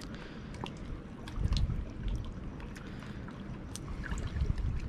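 Shallow seawater sloshing and lapping, with scattered small drips and splashes, over a low rumble that swells twice.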